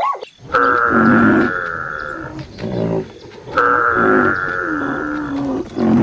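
Elephant trumpeting: two long calls of about two seconds each, with shorter, lower calls between and after them.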